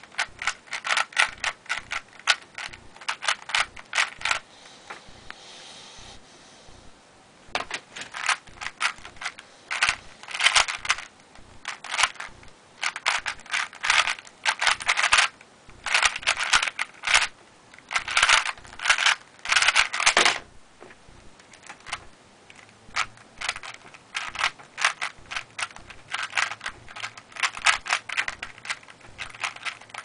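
A 3x3 Rubik's cube turned rapidly by hand: fast runs of plastic clicking and clacking as the layers snap round, in bursts. A pause of about three seconds comes early, and the loudest, densest turning ends about twenty seconds in, after which the clicks go on more lightly.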